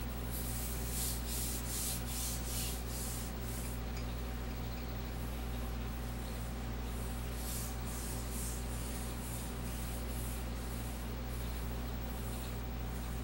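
A hand rubbing a sheet of paper laid over a gel printing plate to transfer the print: repeated papery rubbing strokes, about two to three a second, in spells with quieter stretches between. A steady low hum runs underneath.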